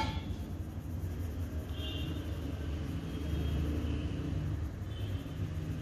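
Low, steady background rumble, with faint short high-pitched tones about two seconds in and again near the end.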